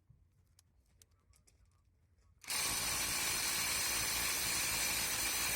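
AutoJare B1803 brushless half-inch cordless impact wrench starting up about two and a half seconds in and hammering steadily at full power.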